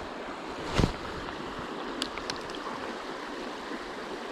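Small shallow stream running steadily over rocks, with one dull thump just under a second in and a few light clicks about two seconds in.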